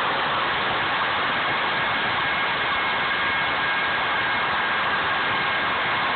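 CNC router spindle running steadily as its bit cuts a groove through a wooden board: an even, unbroken cutting noise with faint high whines.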